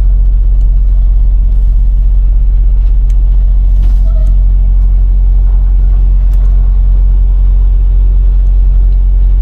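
Semi-truck diesel engine running steadily, a loud low rumble heard inside the cab.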